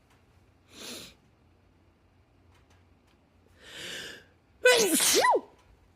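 A woman's sneezing fit: two short breaths, the second longer as it builds up, then a loud voiced sneeze near the end, its pitch sliding down and back up.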